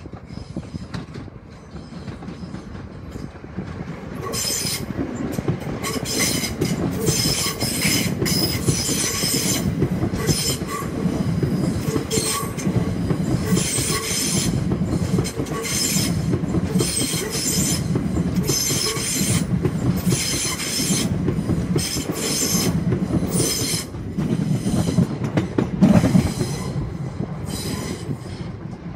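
Electric multiple-unit passenger train passing close under overhead wires, its wheels clattering in a quick, uneven rhythm over the junction's pointwork. The sound builds about four seconds in and is loudest near the end.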